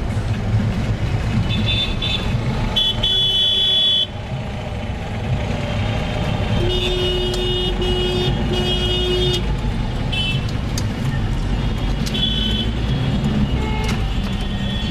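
City traffic heard from inside a moving car: steady low engine and road rumble, with vehicle horns honking again and again, including a run of three honks about halfway through.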